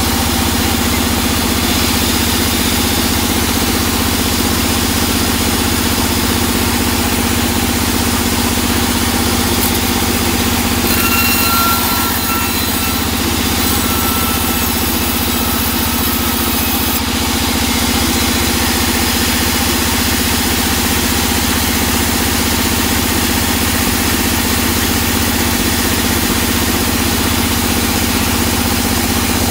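Large vertical band saw running steadily with a constant motor hum while teak timber is fed to the blade. A faint higher whine joins for a few seconds around the middle.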